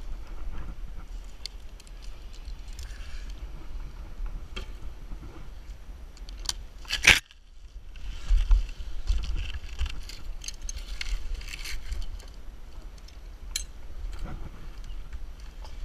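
Climbing carabiners and rope hardware clinking and dry dead Washingtonia palm fronds rustling against the climber, over a low wind rumble on the microphone. One sharp crack comes about seven seconds in.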